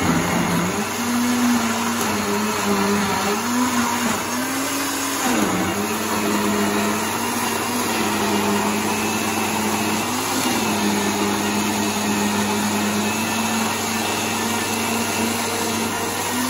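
Electric blender running, blending herb leaves with water; its motor tone wavers, dropping in pitch and recovering a few times, around five and ten seconds in.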